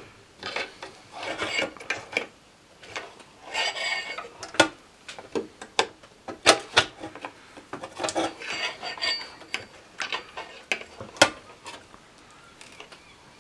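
Irregular scraping and sharp metallic clicks of a soldering iron tip and pliers working on a circuit board as a component lead is desoldered and pulled out. Quieter near the end.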